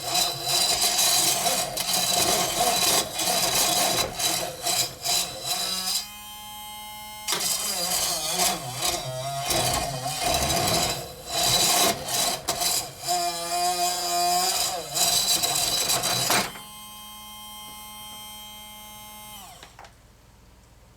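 Hacksaw blade held against the spinning shaft of a small battery-driven motor, cutting the shaft off: a loud rasping scrape over the motor's whine. It breaks off briefly about six seconds in, leaving the motor running alone. Near the end the sawing stops and the motor runs freely, then winds down and stops.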